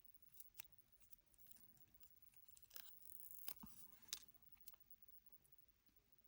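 Faint clicks and a brief soft rustle about halfway through: a dry nail polish strip being handled and peeled from its plastic packaging and backing.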